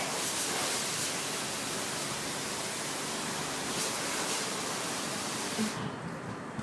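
High-pressure water spraying from a self-service car wash wand, a steady hiss that cuts off suddenly near the end, as the coin-op machine's paid time runs out.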